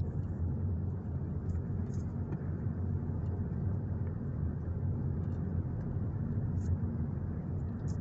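A car driving along a narrow tarmac lane: the steady low rumble of its engine and tyres on the road surface.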